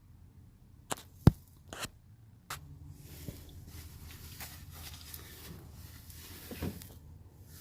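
A few sharp clicks and knocks, the loudest about a second in, then faint handling sounds with one more knock near the end, as a new oil filter is handled and screwed on by hand.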